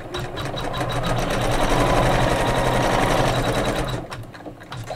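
Computerized embroidery machine stitching the placement outline for appliqué petals, its needle running in rapid even strokes, then stopping about four seconds in.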